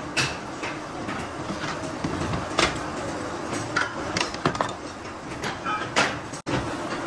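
Steady factory machinery running, with several sharp metallic clanks and knocks as steel tyre-mould plates are handled on a steel press table.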